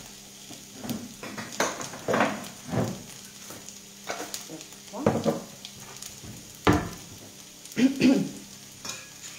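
A utensil stirring an olive-oil and lemon marinade in a ceramic bowl, scraping and knocking against the bowl in about eight irregular strokes, over a faint sizzle of artichokes cooking in a pan.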